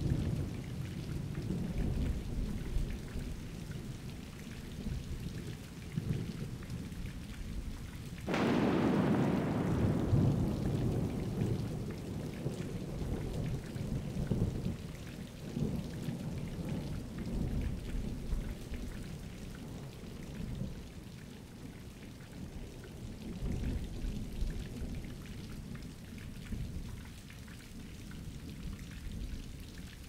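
Thunderstorm: steady rain with thunder rumbling throughout, and a sharp thunderclap about eight seconds in that rolls off over the next few seconds.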